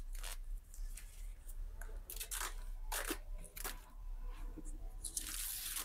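Faint crinkling and rustling of the plastic wrap on PVC boards as they are handled and shifted, with scattered soft clicks and a longer rustle near the end.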